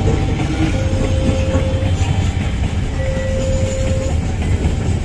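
Long freight train of open coal wagons rolling past, a steady heavy rumble with wheels clacking over the rails. A steady mid-pitched tone sounds for about a second, twice.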